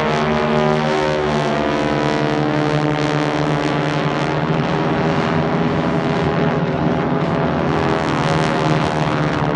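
A formation of North American Harvard trainers flying overhead. Their Pratt & Whitney R-1340 nine-cylinder radial engines and propellers make a loud, continuous roar, and the pitch drifts slowly as the formation moves. The Harvard's distinctive roar comes from its propeller tips exceeding the speed of sound.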